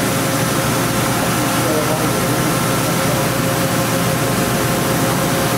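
OKK VP600 five-axis vertical machining center running, its spindle head moving up and down: a steady mechanical hum with a few steady high tones.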